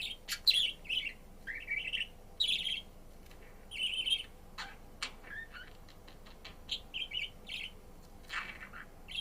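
Budgerigar chirping and warbling: a string of short, quick chirps in clusters, with a few sharp clicks around the middle.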